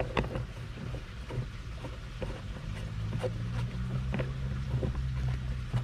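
Scattered clicks and knocks of plastic fittings being handled as a hose adapter is fitted to a shop vacuum's outlet, over a low steady machine hum that grows louder from about halfway through.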